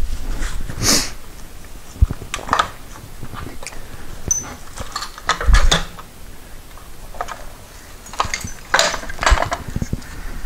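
Irregular clinks, knocks and scrapes of metal motorcycle fork parts and hand tools being handled during front-end reassembly, with a few sharper knocks.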